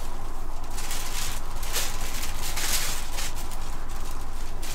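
Sheet of tissue paper rustling and crinkling in a few brief bursts as it is moved and laid flat on a work mat, over a steady low hum.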